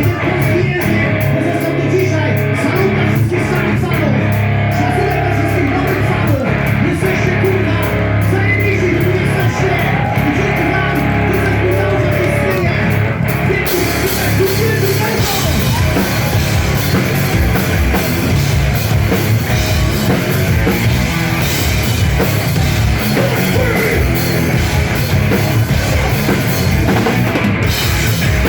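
Live metal band playing, with a drum kit, heavy guitars and bass. About halfway through, the cymbals come in and the sound fills out.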